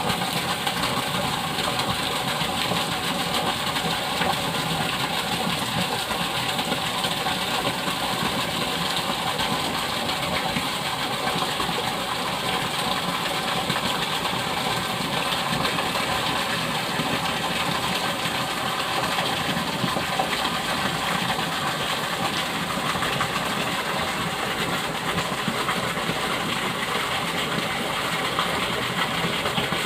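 Water pouring over a canal lock gate into the pool below, a steady loud rushing that does not let up.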